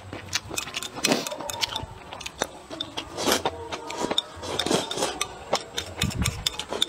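Wooden chopsticks clicking and scraping on a ceramic plate as the last of the rice is swept into the mouth, with close chewing and eating noises.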